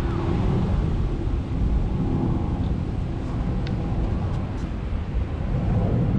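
Wind noise on the microphone: a steady, uneven low rumble outdoors, with a few faint high ticks.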